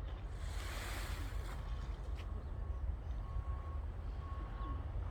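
Sea waves washing onto the shore, one wave swelling up and breaking about a second in, over a steady low rumble of surf and wind.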